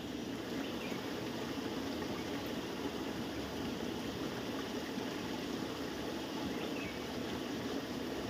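Steady rushing of flowing water, even throughout, with no distinct events.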